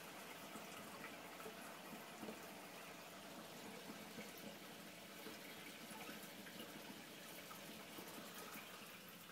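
Faint, steady trickle and splashing of water circulating in a reef aquarium.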